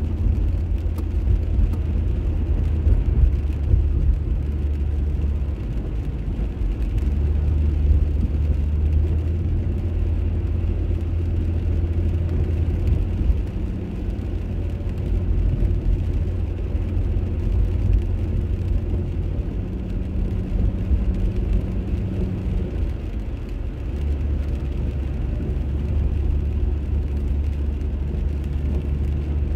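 Car driving on a wet road, heard from inside the cabin: a steady low drone of engine and tyres, its hum shifting a few times as the speed changes.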